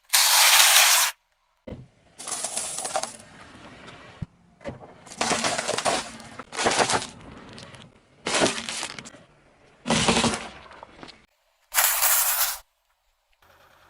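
A car tyre crushing crunchy drinks containers: a series of about seven separate crackling, crunching bursts, each a second or less, with short gaps between them.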